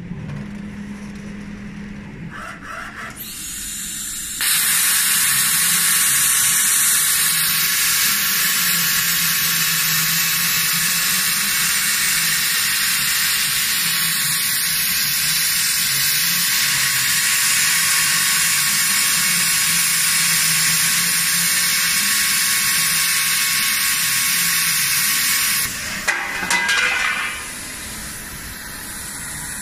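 CNC plasma torch cutting a steel pipe turned in the machine's rotary chuck: a loud, steady hiss of the cutting arc starts about four seconds in, runs for about twenty seconds and cuts off suddenly, followed by a brief crackle. A low machine hum runs underneath throughout.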